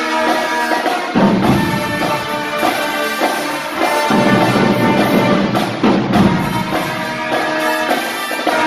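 High school marching band playing loudly: trumpets, trombones, saxophones and sousaphones over a drumline of snare drums, tenor drums, bass drums and crash cymbals. The low brass and bass drums come in hard about a second in.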